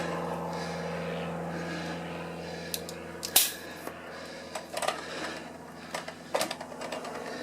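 Scattered clicks and knocks from handling a bicycle wheel and tyre, the loudest about three and a half seconds in, over a steady mechanical hum that fades away during the first few seconds.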